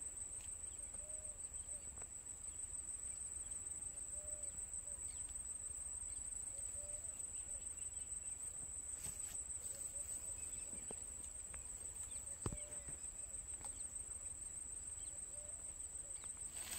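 Insects trilling steadily in one unbroken high-pitched note, with a bird giving a short, soft, low call every second or two. A single sharp click about twelve seconds in.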